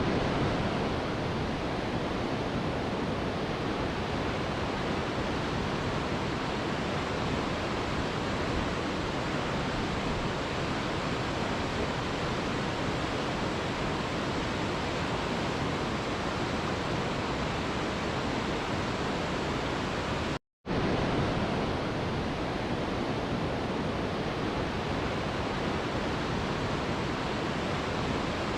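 Waterfall rushing with a steady, even roar of falling water. About two-thirds of the way through it cuts out for a split second, then starts again.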